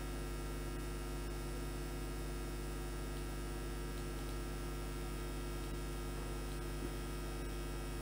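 Steady electrical mains hum with a faint hiss underneath, unchanging throughout.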